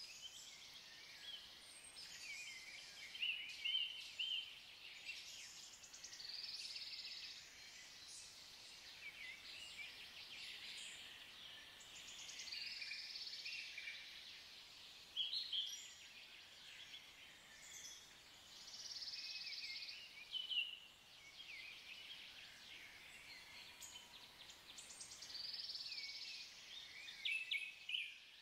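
Woodland songbirds singing: high, rapidly trilled phrases of a second or two, repeated every few seconds, with a few short sharp chirps, over a faint outdoor hiss.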